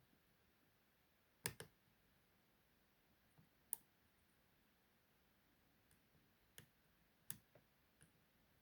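Small, sharp metallic clicks of a lock pick and tension wrench working inside a padlock, scattered over near silence: a double click about one and a half seconds in, one more a couple of seconds later, and a cluster of clicks near the end.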